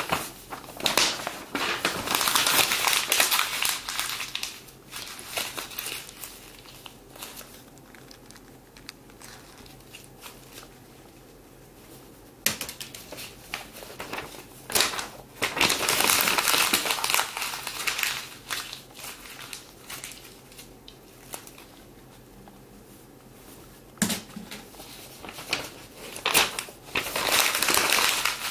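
Paper being crumpled by hand close to the microphone, in three long crinkling bursts: near the start, about halfway through, and near the end, with quieter pauses between.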